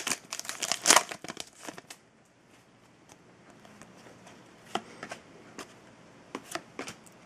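Foil trading-card pack wrapper crinkling as it is torn open and pulled apart for the first two seconds or so. Then the cards are flipped through by hand, with a few soft clicks and flicks.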